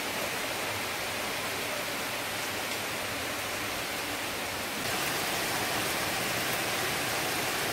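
Steady rain falling, a little louder from about five seconds in.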